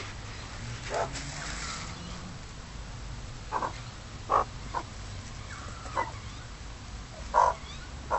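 Magpies giving short, separate calls, about six scattered through a few seconds, over a low steady background rumble.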